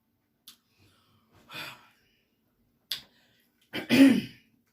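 A woman catching her breath and coughing after food nearly went down the wrong pipe: a few short breaths, then one louder cough near the end.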